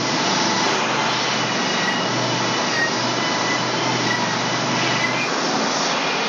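Wood-Mizer LT35 portable band sawmill running steadily as its saw head travels along the track over the boards on the bed.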